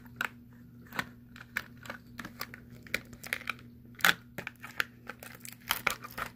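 Scissors snipping at plastic wrapping and tape on a Pikmi Pops toy cup, the plastic crinkling: irregular clicks and crackles, the loudest about four seconds in. A faint steady hum underneath.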